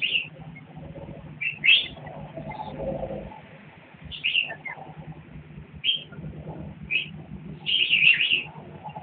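Red-whiskered bulbuls giving short, sharp chirps every second or so, with a quick cluster of calls near the end, over a low steady hum.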